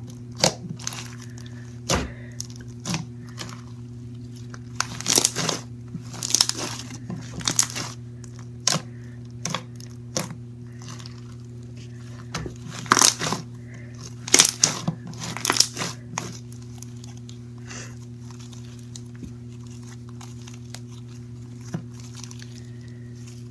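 Foam-bead slime being kneaded and squeezed by hand, giving bursts of crackling, crunching pops, thickest about five to eight and thirteen to sixteen seconds in and thinning out toward the end. A steady low hum runs underneath.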